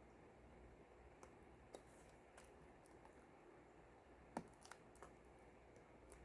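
A few faint, short clicks in near silence, the loudest about four seconds in: small plastic parts of a laptop's display-cable connector being handled while it is fitted.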